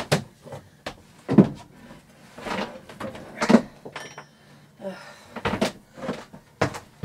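Wooden knocks and clunks, about six of them spread over several seconds, as the companionway hatch boards of a sailing yacht are handled and steps are taken on the wooden companionway stairs.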